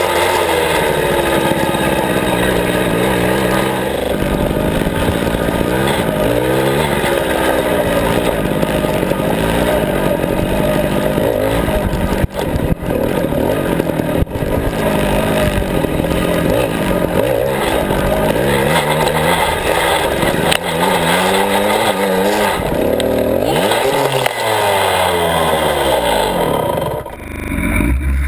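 Small 49 cc Suzuki mini motocross bike engine, heard up close, revving up and down over and over as the bike rides across rough ground. The engine sound dips briefly and changes near the end.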